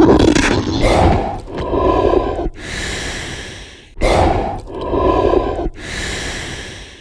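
Creepy monster-creature sound effect: a growl-like sound followed by a long breathy hiss, the pair coming twice.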